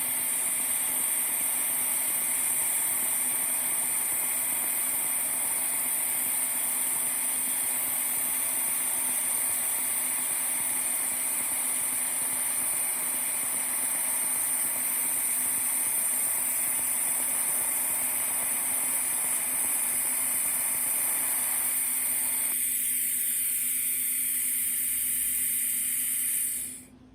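Pulsed TIG welding arc at about 200 amps, hissing steadily with a constant hum as filler rod is fed in. About 22 seconds in, the lower part of the sound drops away; the high hiss goes on until it cuts off suddenly near the end.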